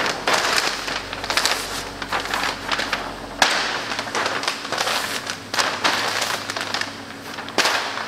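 A large sheet of vinyl-wrap backing paper being crumpled and rolled up by hand: a dense, crackling paper rustle. It has a sharper crackle about halfway through and another near the end.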